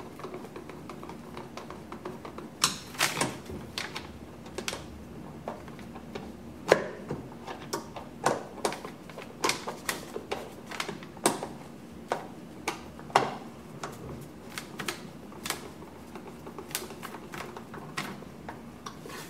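Screwdriver turning the screws that hold the plastic air cover on a Riello RDB oil burner: a run of sharp, irregular clicks and taps as the tool works the screw and the cover is handled.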